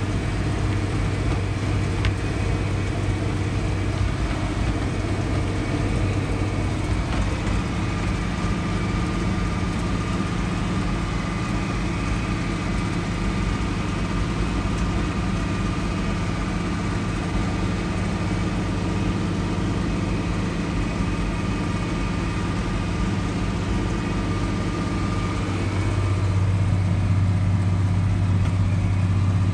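Farm tractor engine running steadily while driving down the road, heard from inside the cab. The engine note shifts about seven seconds in and grows louder near the end.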